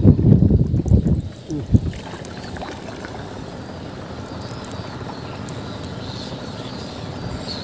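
Water sloshing around a small canoe, loud and rumbling for about the first second and a half, then settling to a steady soft wash with a few faint ticks.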